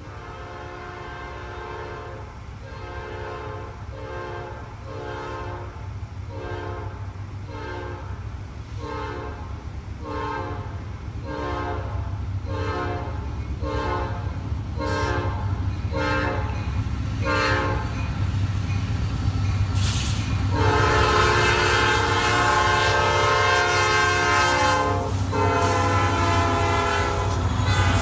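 Horn of Norfolk Southern GE AC44C6M locomotive No. 4017 playing a hornshow: a long run of short toots, about one a second, coming a little quicker, then two long blasts near the end. Under it the diesel rumble of the approaching freight grows louder.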